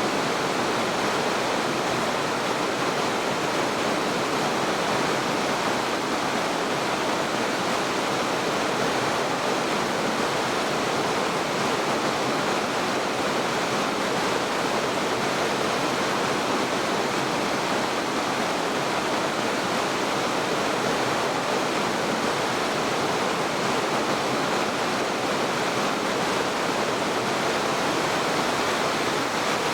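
Fast mountain stream water rushing over the rapids of Oirase Stream, a steady, unbroken roar of white water.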